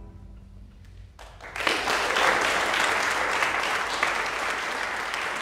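The last of a string quartet's final chord fades away, then audience applause starts about a second and a half in and carries on steadily.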